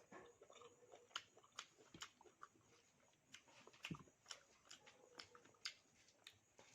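Close-up eating sounds: chewing with irregular wet mouth clicks and smacks, several a second.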